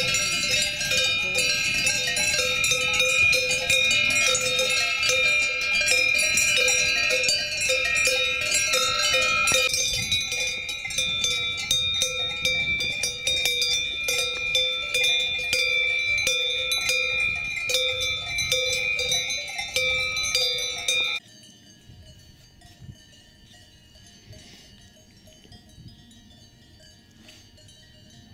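Cowbells on grazing cows clanking and ringing continuously, many bells of different pitches overlapping. About 21 seconds in the ringing drops suddenly to a much fainter jingle.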